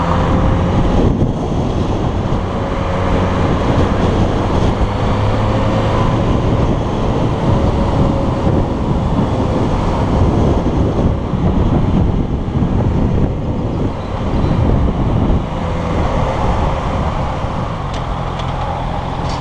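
Motorcycle riding along a road, heard through a helmet-mounted camera's microphone: steady wind buffeting with the bike's engine running underneath.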